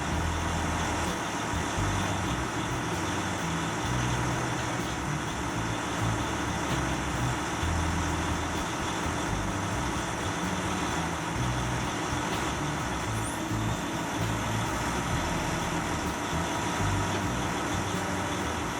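Heavy forestry machine with a large engine running steadily, with an uneven low rumble throughout.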